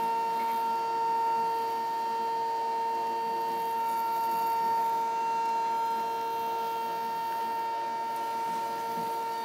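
Stepper motor on a home-built DLP resin 3D printer's Z-axis, stepping slowly and giving a steady, unchanging whine with a weaker lower tone beneath it.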